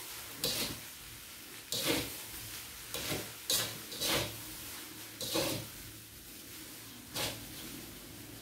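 Spatula scraping and tossing fried rice in a wok on a low gas flame, in about seven short strokes at uneven intervals.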